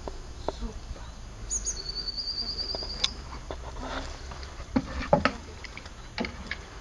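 A small songbird sings one short, rapid trill about a second and a half in. Several sharp knocks follow, the loudest around five seconds in, from a dog's paws on the wooden agility boards.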